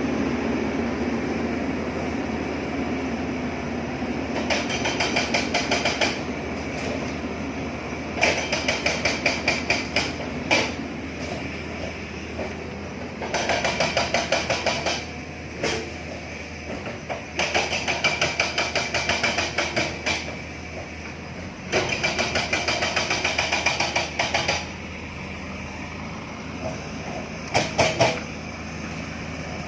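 Diesel engine of a JCB backhoe loader running steadily, with six runs of rapid, evenly spaced hammering blows, each lasting one to three seconds.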